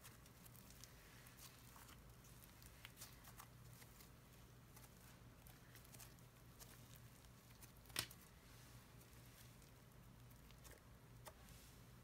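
Faint soft crackles and ticks of cloud cream slime being stretched and mixed by hand, with one sharper click about eight seconds in, over a low steady hum.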